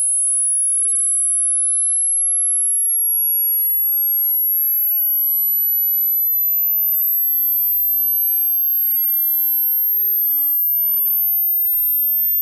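A single pure test tone, very high-pitched, climbing slowly and steadily in pitch at constant loudness: a hearing-test sweep rising toward the upper limit of hearing, where older ears lose the tone.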